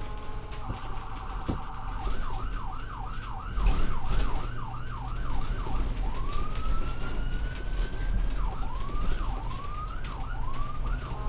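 Ambulance siren switching between modes. A steady set of tones gives way, under a second in, to a rapid warble. About two seconds in it turns to fast yelp sweeps of roughly two or three a second, then a single long rising wail, then slower yelps, and near the end it returns to steady tones. A steady low rumble runs beneath it.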